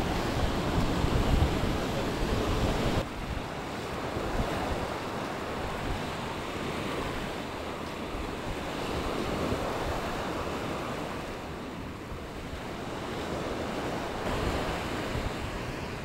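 Small waves breaking and washing up on a sandy shore in a steady, swelling wash. Wind buffets the microphone, heaviest in the first three seconds, then the low rumble drops away abruptly.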